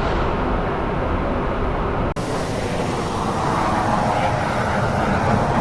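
Steady noise of a business jet's cockpit in flight: air rushing past and the engines running. There is a brief dropout about two seconds in.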